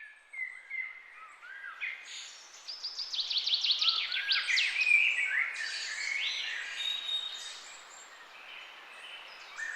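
Several songbirds singing: short whistled chirps and quick trills, busiest a few seconds in, over a faint outdoor hiss.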